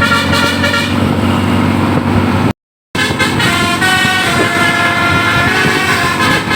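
Bus's 'basuri' telolet musical horn playing a tune of held, changing notes, loud. It breaks off into silence for a moment about two and a half seconds in, then carries on.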